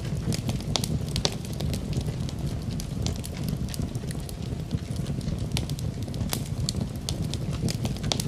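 Wood fire in a fireplace crackling, with frequent irregular sharp pops over a steady low rumble of the flames.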